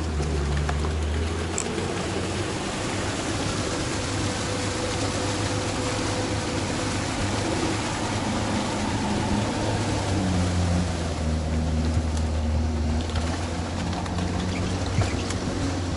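Engine of a Sherp amphibious ATV running as it wades through a flooded ford, with water churning around its big low-pressure tyres. The engine note steadies and then shifts pitch about ten seconds in.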